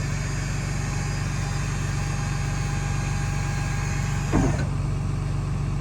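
Electric motor of a truck's rear lift running as the lift rises to its stowed position, over the truck's engine idling steadily. About four and a half seconds in the lift motor stops with a brief loud noise, leaving only the idling engine.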